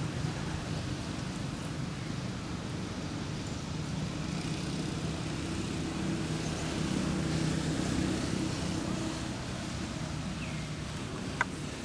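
Low steady hum of a distant motor vehicle engine that swells for a few seconds midway, over outdoor ambience. Near the end there is a faint short falling chirp and then one sharp click.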